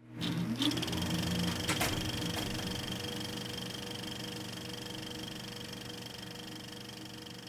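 Film projector running as a logo sound effect: a rapid mechanical clatter over a steady hum. It starts suddenly and fades slowly, with a few sharper clicks in the first two seconds.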